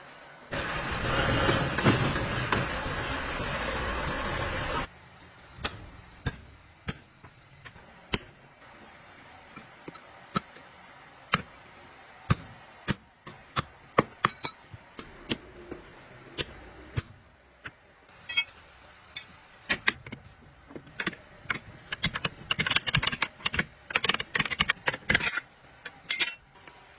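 Truck axle repair work: a loud, even noise for about four seconds, then many scattered sharp metal clinks and knocks of tools and parts, thickest near the end.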